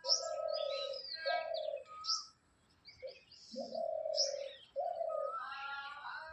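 Dove (ghughuti) cooing: a series of low coos, each about half a second to a second long, with a pause midway. Smaller birds chirp and whistle at higher pitch alongside.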